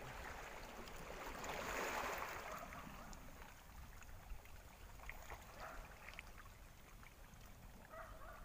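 Faint wash of seawater over shore rocks, swelling for a couple of seconds near the start and then settling low, with a few faint clicks.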